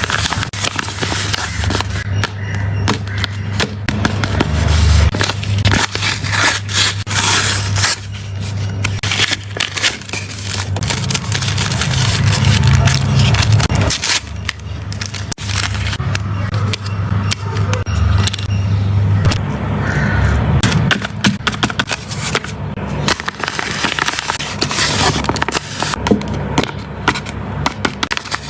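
Plastic blind-bag packaging being handled, crinkled and torn open: a dense, irregular run of crackles and scrapes, with heavy low rumble from the handling.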